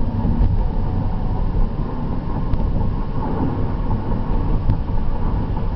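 A car driving at road speed, heard from inside the cabin: a steady low rumble of road, engine and wind noise.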